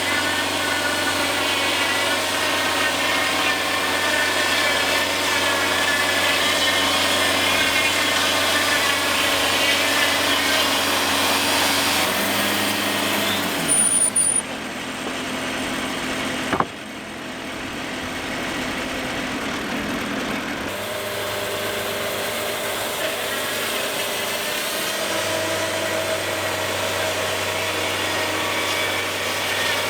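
Wood-Mizer portable band sawmill running, its engine steady under the band blade cutting a large pine log. About halfway through a pitch falls away and there is one sharp knock, then the mill runs on quieter.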